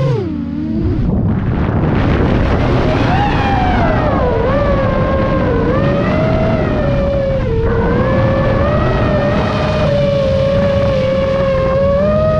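Motor and propeller of an FPV gyro in flight, over heavy wind rush. The motor's pitch drops sharply at the start, climbs back over the next couple of seconds, then wavers up and down with the throttle.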